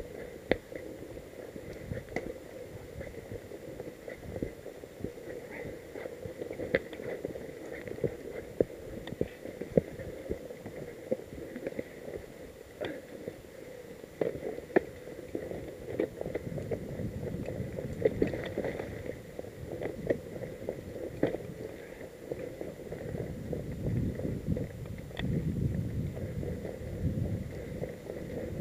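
Mountain bike rolling over a dirt singletrack: a steady rattle with frequent sharp clicks and knocks as the bike and its camera mount jolt over roots and stones. Wind rumbles on the microphone in the last few seconds.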